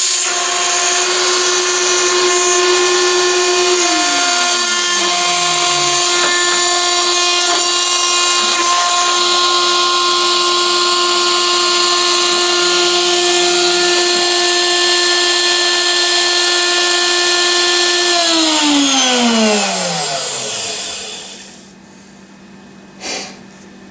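CNC router spindle running with a steady high whine while milling black acrylic sheet. About nineteen seconds in its pitch falls smoothly as the spindle winds down and stops. A single light knock follows near the end.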